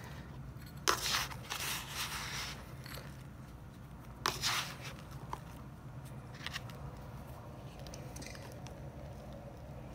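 Damp, crumbly bath bomb mix being scooped and packed into stainless steel round mold halves: short scraping, crunching rushes, the strongest about a second in, around two seconds and about four and a half seconds in.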